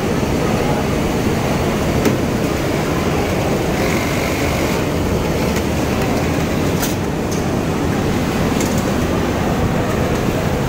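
Steady mechanical din of a garment factory sewing floor, with industrial sewing machines running, broken by a few sharp clicks and a brief hiss about four seconds in.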